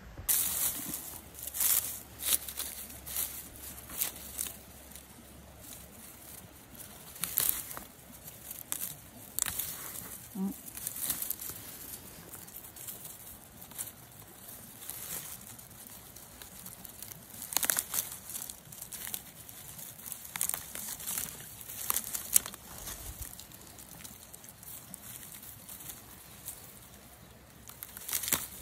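Fern fronds and undergrowth rustling and crackling in irregular bursts as plants are pushed aside and picked.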